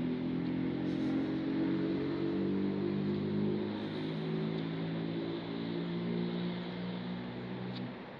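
A motor vehicle's engine running steadily close by, its pitch shifting slightly a couple of times before it drops away near the end.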